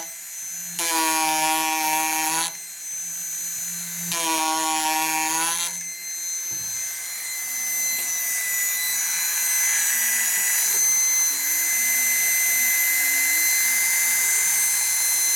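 PROXXON MSG electric engraver's reciprocating chisel buzzing as it cuts into wood, in three pushes. About six seconds in the low buzz drops away and the tool keeps running without load, a thinner, higher sound.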